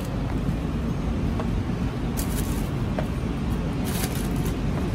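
Steady low rumble of street background noise, like passing traffic, with brief crinkling sounds about two and four seconds in.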